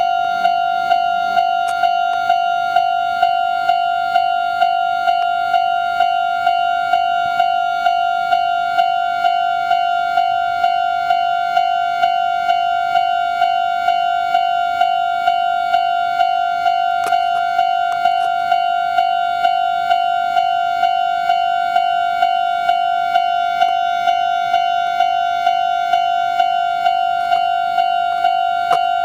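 Japanese railway level crossing warning bell ringing its steady, even clang at about two strikes a second, the signal that a train is approaching and the crossing is closed.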